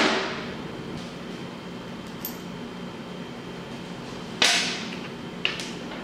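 A light mallet tap seating a steel gear on a Polaris 700 engine dies away at the start, then two sharp knocks about a second apart near the end, the second with a brief ring.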